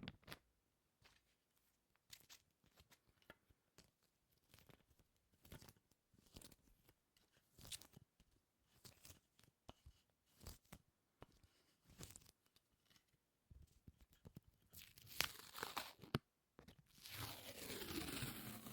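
Close-miked sticky, tacky crackling: short peeling pops and tearing clicks of something sticky being pulled apart, sparse at first, bunching up and getting louder around fifteen seconds in, then turning into a steady soft rustle near the end.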